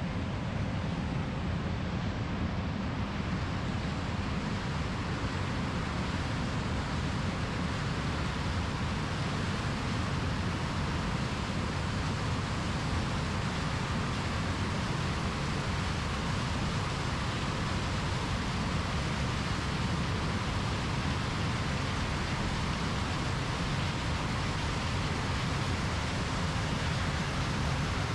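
John Deere combine harvester running steadily while harvesting corn: a continuous, even drone of engine and threshing machinery, heaviest in the low end.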